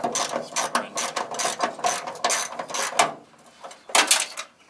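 Hand ratchet clicking in quick repeated strokes, about four a second, as hood hinge bolts are tightened, pausing briefly about three seconds in before a couple more strokes.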